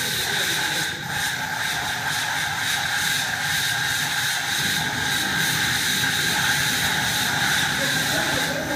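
Kitchen-fire extinguisher training simulator giving a loud, steady hissing rush with a high whine through it, as the projected fire is fought with a training extinguisher.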